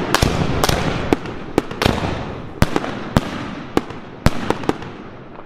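Albert 'Raptor Princess' 100-shot 25 mm compound fireworks cake firing: sharp shots about two a second over a continuous crackle that slowly fades.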